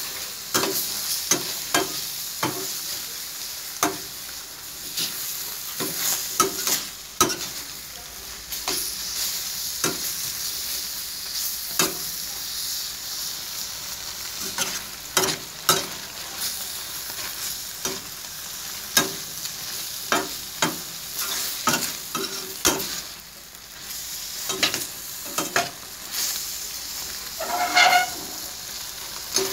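Beef and lemongrass sizzling in a stainless-steel frying pan on a gas burner, with a steady hiss, while a spatula stirs and turns it, clicking and scraping against the pan one or two times a second. There is a brief squeak near the end.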